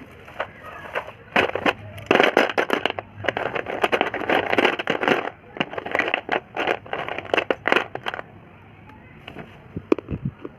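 Dense crackling and crunching from a box of slate pencils being opened and handled, starting about a second and a half in and stopping about eight seconds in. A few sharp clicks follow near the end.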